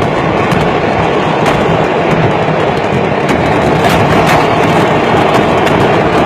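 Fireworks going off in a continuous dense barrage: a steady loud rushing noise studded with many rapid sharp crackles and pops.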